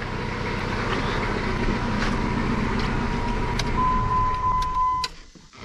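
2005 Jeep Liberty engine idling, a steady rumble with a thin high whine that the owner blames on a noisy manual transmission. About five seconds in, the engine is switched off and the sound stops abruptly.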